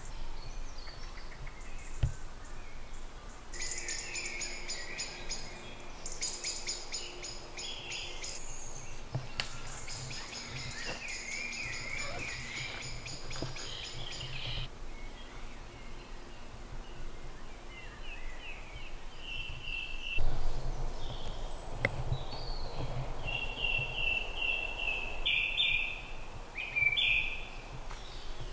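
Woodland birdsong: a songbird's fast, trilling phrases for about ten seconds, then a bird repeating short clear notes, over a low steady background rumble.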